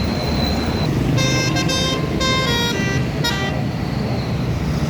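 Bus telolet basuri horn playing a short melodic phrase of about five notes, starting about a second in, over a steady low engine and traffic rumble.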